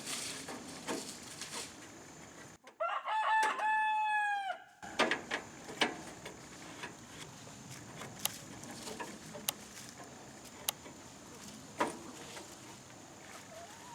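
A rooster crowing once, a single call of about two seconds starting a couple of seconds in, the loudest sound here. Faint scattered clicks and light metal handling noises around it.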